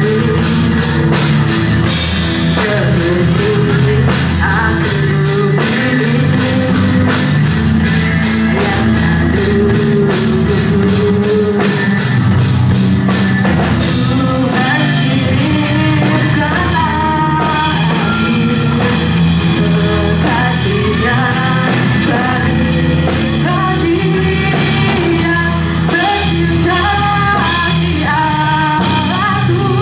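A rock band playing live: drum kit keeping a steady beat under bass and guitar, with a singer's voice carrying the melody.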